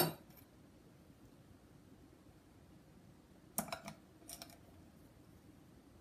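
Light clicks and taps of aluminum craft wire and hand tools being handled at a work surface: a short cluster right at the start and a few more about three and a half seconds in, with faint room tone between.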